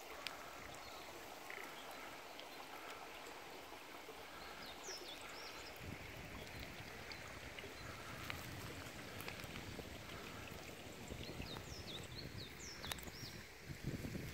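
Quiet rural outdoor ambience: a steady faint rush, with a few short bird chirps about five seconds in and a cluster near the end. From about six seconds a low rumble of wind on the microphone joins in.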